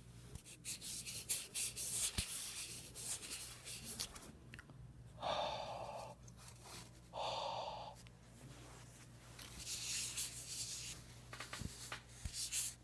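Clothing fabric rustling and rubbing against the camera's microphone as the camera is handled. Two short muffled sounds come about a second and a half apart partway through.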